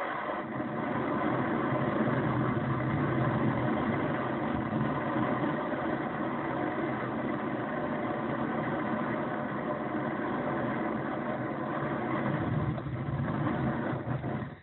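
Handheld torch burning with a steady roar, heating a stuck plastic faucet cartridge inside its brass valve body to melt it loose. The sound cuts off suddenly at the end.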